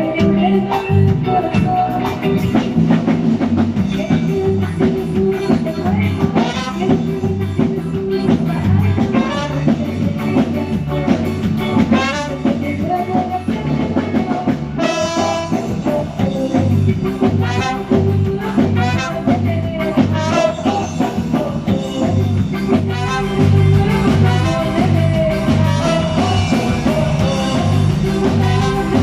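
Band music with a drum kit and a steady, repeating bass line under a lead melody.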